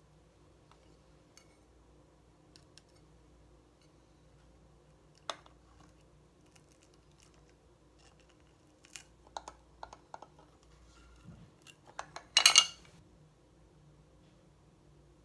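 Scattered light clicks and taps from small makeup items being handled, with a cluster of clicks a few seconds before a brief, louder scrape near the end.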